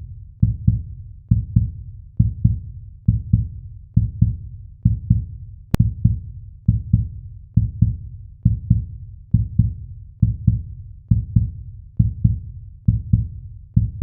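Heartbeat sound effect: a steady double thump, lub-dub, repeating at a resting pace of roughly 65 beats a minute, deep and low.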